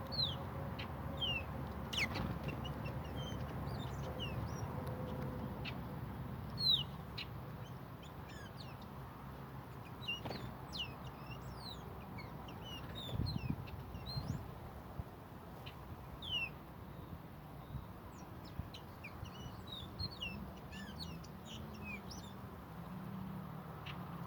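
Several small birds chirping at intervals: short, high, falling calls scattered throughout, over a steady low hum, with a few sharp clicks or knocks in between.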